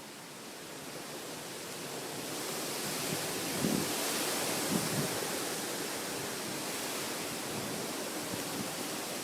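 Hurricane wind rushing and gusting, swelling over the first few seconds and then blowing steadily, with a few brief low thumps around the middle.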